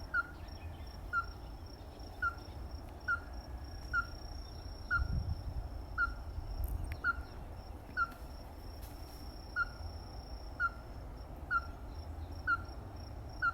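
Ruddy-breasted crake calling: a steady series of short, knocking single notes, about one a second, fourteen or so in a row, over a faint steady low rumble.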